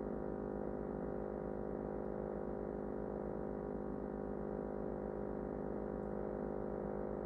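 Refrigerator running: a steady hum of many layered tones with a fast low buzz underneath.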